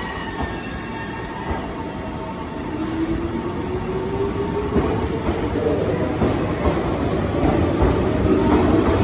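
Meitetsu 6000-series electric train pulling out and accelerating past along the platform. The traction motors whine, rising in pitch, over wheels rumbling and clacking on the rails, and the sound grows louder as the cars go by.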